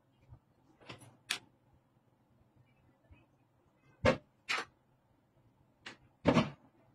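Short, sharp knocks and clatters of hard tools and mounting hardware being handled and set down on a cabinet top: a pair about a second in, a louder pair around four seconds in, and another pair near the end, the last a slightly longer clunk.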